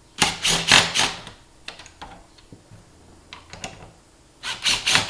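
Cordless impact driver hammering as it backs out Phillips-head screws from a plastic grille, in two short rattling bursts: one about a quarter second in lasting about a second, and another near the end.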